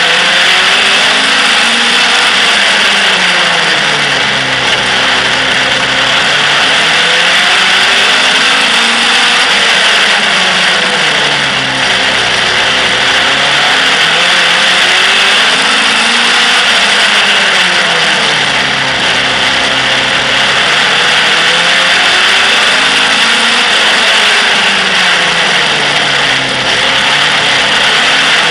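Outlaw stock car engine, recorded from a camera mounted on the car, revving up and easing off in a repeating cycle about every seven seconds as the car laps the oval, over a steady hiss of wind and road noise.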